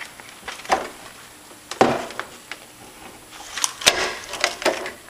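A few scattered light knocks and clicks, a cluster of them near the end.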